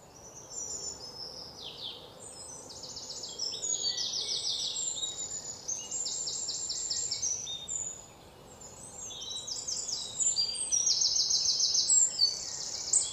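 Many small birds chirping and trilling, with short, rapid high-pitched calls overlapping one another over a faint steady hiss. There is a brief lull about eight seconds in.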